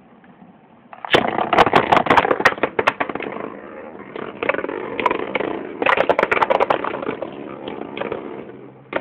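Two metal-wheeled Beyblade spinning tops whirring and scraping around a plastic stadium, starting suddenly about a second in. Their clashes give rapid sharp clicks that come in two dense flurries.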